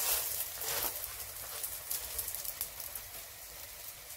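Oil sizzling and crackling under a stuffed msemmen flatbread frying in a pan, busiest in the first second as it is pressed flat, then settling to a steady sizzle.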